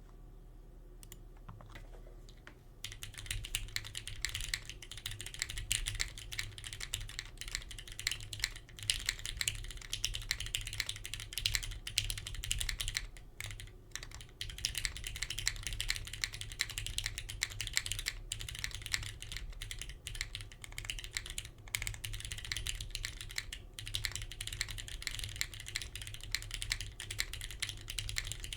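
Typing on a Takoneko mechanical keyboard with Cherry MX Black linear switches on a carbon-fibre plate and GMK keycaps: a fast, steady stream of keystroke clacks that starts about three seconds in, with a couple of short pauses midway, over a faint low hum.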